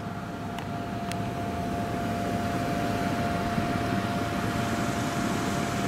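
Road traffic noise that grows steadily louder, as of a vehicle drawing near, with a thin steady whine running through it and two light clicks about half a second and a second in.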